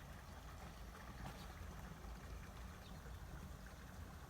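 Faint, steady running water with a low rumble underneath.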